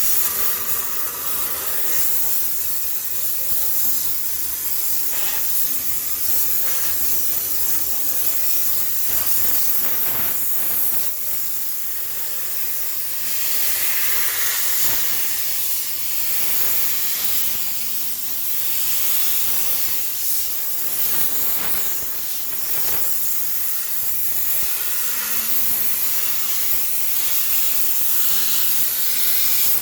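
High-pressure steam cleaner jetting steam onto a washing machine to sterilize it: a steady, loud hiss that swells and eases slightly as the nozzle moves.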